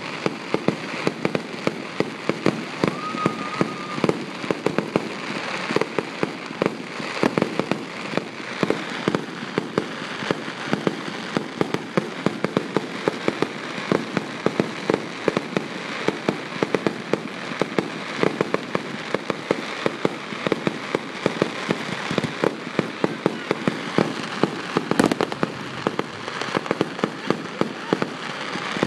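Aerial fireworks display: a continuous barrage of rapid pops and crackles from bursting shells. A brief high whistle sounds about three seconds in.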